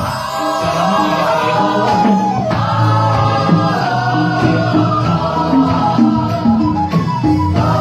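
Mixed church choir of men and women singing together over a rhythmic instrumental accompaniment.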